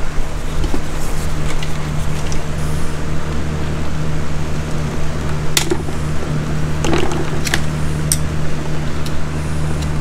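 A steady low mechanical hum throughout, with a few sharp clicks in the second half as a screwdriver pries apart the plastic clip holding the fuel tube to the base of a C5 Corvette fuel pump module.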